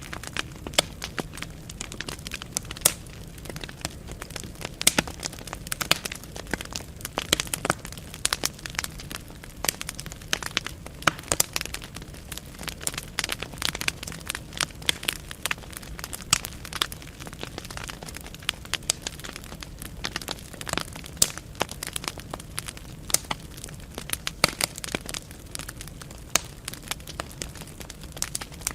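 Wood fire burning in a fireplace: many sharp, irregular pops and crackles from the burning logs over a steady low rumble of the flames.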